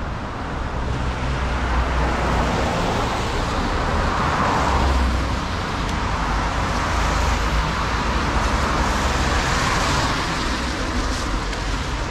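Road traffic on a city street: cars passing, with two passes swelling up about four and about ten seconds in over a steady background hum.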